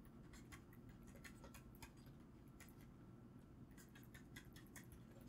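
Faint ticks and taps of a stylus writing on a tablet screen, coming in quick irregular clusters.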